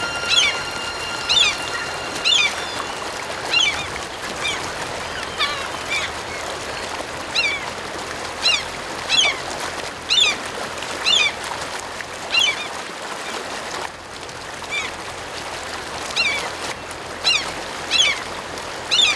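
Herring gulls calling: a run of short, downward-slurred calls, roughly one a second, with a brief lull about two-thirds of the way through, over a steady background hiss.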